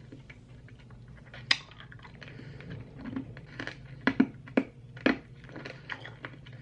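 A mouthful of Warheads Extreme Sour hard candies being chewed, with scattered sharp crunches, several close together about four to five seconds in; the candies are still hard and hard to bite.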